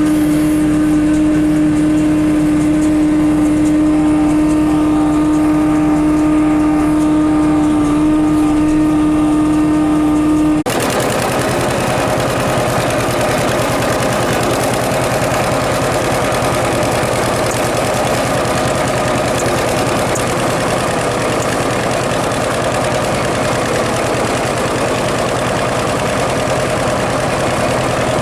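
John Deere 6300 tractor running steadily at working speed with the square baler, a constant drone. About ten seconds in the sound switches abruptly to a denser, rougher run of the same machinery.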